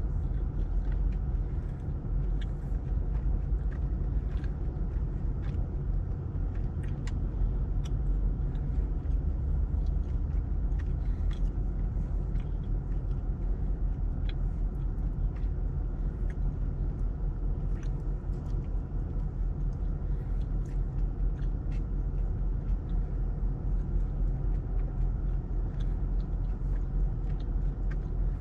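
Car driving, heard from inside the cabin: a steady low engine and road rumble with scattered faint clicks.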